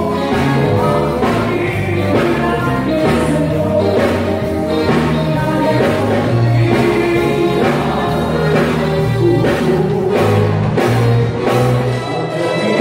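Live band playing a song, with a singing voice over a bass line and drum hits.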